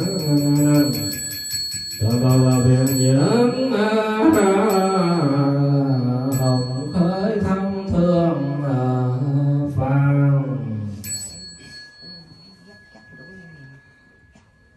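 Buddhist monk chanting a sutra through a microphone in long held notes, stopping about eleven seconds in. A small bell is struck and rings on, last about eleven seconds in as the chant ends.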